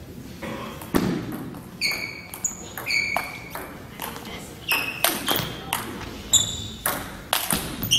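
Table tennis rally: a celluloid/plastic ping-pong ball clicking back and forth off paddles and table, each hit a sharp knock with a short ringing ping, at roughly two hits a second.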